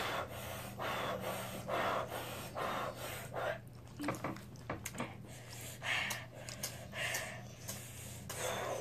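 People breathing hard and panting through the mouth, a string of short breaths every half second to a second, as they suffer the burn of extremely hot chicken-wing sauce.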